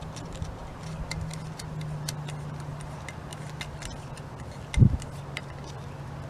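Small, irregular metallic clicks and ticks of a brass screw being threaded into a carburetor body by hand, over a steady low hum, with one dull thump about five seconds in.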